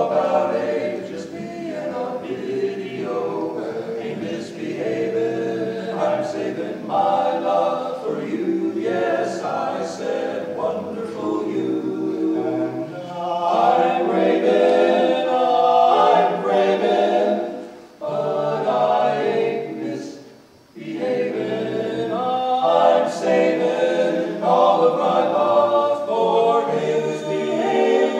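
Male barbershop quartet singing a cappella in four-part close harmony, the chords shifting from phrase to phrase, with two short breaks between phrases about two thirds of the way through.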